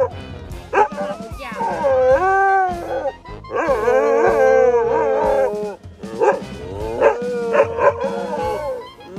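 Two dogs howling in a string of long, wavering calls, one of them with a hoarse, raspy 'smoker's voice' howl. Background music plays underneath.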